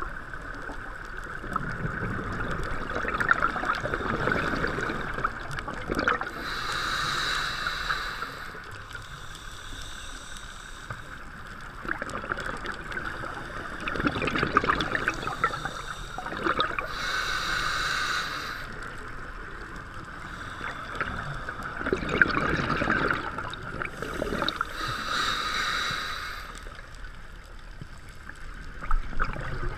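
Scuba diver breathing through a regulator, heard underwater: a bubbling rumble of exhaled bubbles followed by a shorter hissing inhale, three slow breaths in turn.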